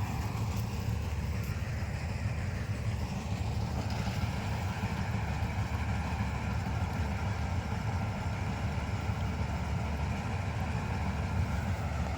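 John Deere harvester's engine running steadily, a continuous low rumble.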